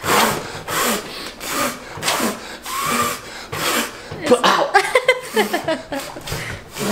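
Hand-scrubbing a stuck-on non-stick frying pan in a kitchen sink: rough scrubbing strokes repeating about one and a half times a second, with a few short squeaky sounds about four to five seconds in.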